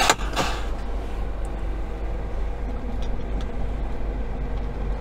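A short hiss of compressed air as the truck's air parking brake is set, right at the start, then the truck's diesel engine idling steadily, heard from inside the cab.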